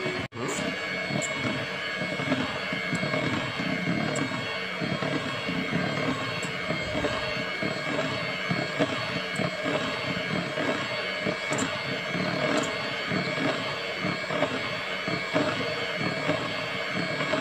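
Electric hand mixer running steadily at one speed, its beaters whisking thick chocolate sponge-cake batter, with a few faint ticks scattered through.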